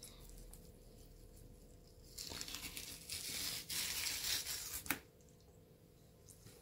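Skin being ripped off a sole by hand while a knife pins the fish to a wooden board: a rough tearing sound from about two seconds in, ending sharply about five seconds in.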